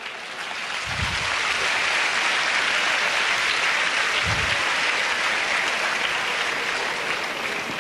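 Theatre audience applauding, swelling over the first second or two and then holding steady. Two dull low thumps come through, about a second in and about four seconds in.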